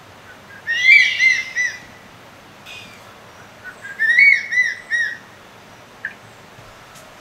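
Sri Lankan crested serpent eagle calling: two loud bouts, about three seconds apart, each a quick run of short whistled notes.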